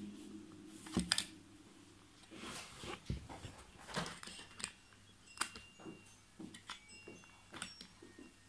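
Plastic model truck parts being handled and pressed together: scattered light clicks and taps, with a louder double knock about a second in.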